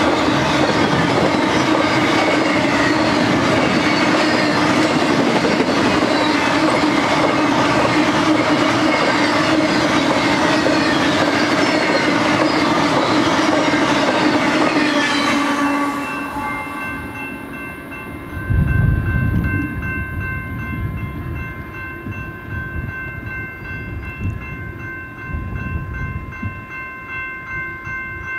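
A double-stack intermodal freight train's cars rolling by on steel rails, a loud steady rumble with a constant squealing tone. The last car clears about halfway through and the rumble drops away, leaving a grade-crossing warning bell ringing steadily with a fast, even beat, and some low, uneven rumbling.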